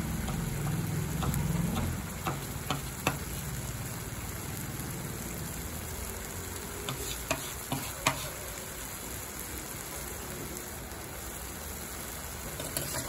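Kadhai paneer gravy simmering and bubbling in a pan on a gas burner: a steady sizzle with scattered short pops. A low rumble fades out about two seconds in.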